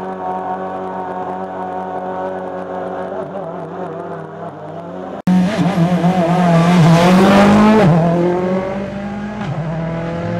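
Rally car engine holding a steady note, then, after an abrupt cut about halfway through, a louder rally car revving hard past with its pitch rising and falling through gear changes. It settles back to a steadier note near the end.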